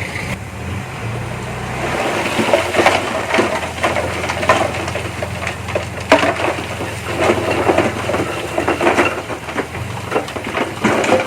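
Earthmoving machinery at work: a diesel engine running steadily under a stream of irregular crunches and clanks that start about two seconds in, as of tracks, blade or tipped soil and rock grinding.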